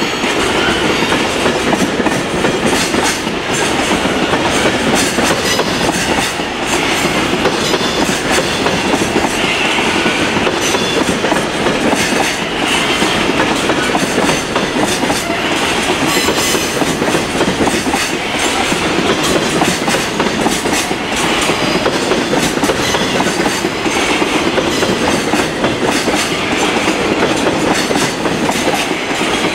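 Freight train's container flatcars rolling past at steady speed, with a continuous rumble and a clickety-clack of wheels over rail joints.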